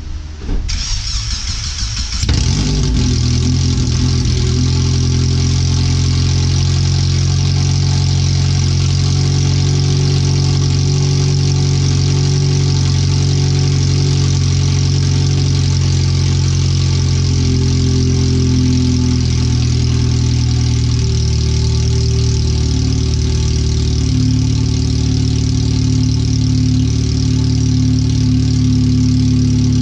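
Car engine starting up about two seconds in and then idling steadily, very loud because it runs through a bare header with the rest of the exhaust off. The idle is running 5–7% rich after the O2 sensors were moved.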